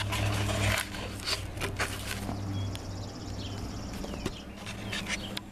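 Handling and rustling noise from a handheld camera being turned and carried, with several sharp clicks and a steady low hum underneath.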